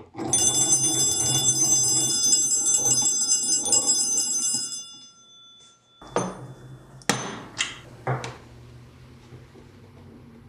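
Stromberg-Carlson Model 112 magneto wall telephone rung by its hand crank: the two nickel-plated gongs ring with very rapid strikes over a low whirr for about four and a half seconds, then fade. A few sharp clicks and knocks follow.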